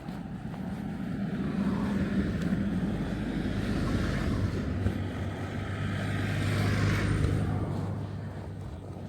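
A motor vehicle driving past: a low engine hum with tyre noise that grows louder, peaks about four to seven seconds in, then fades away.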